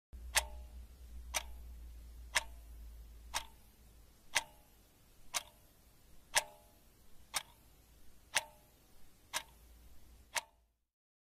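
A clock ticking steadily about once a second, with fainter ticks between some of the beats in the second half. It stops abruptly near the end.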